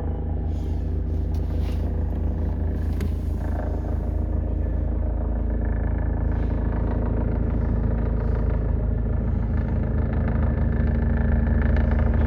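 Helicopter rotor and engine running steadily with a fast low beat, growing gradually louder as it comes in to land.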